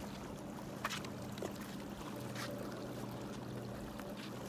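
Small lake waves lapping on a rocky shoreline under a steady low hum, with a stone splashing into the water about a second in and a couple of fainter splashes or clicks later.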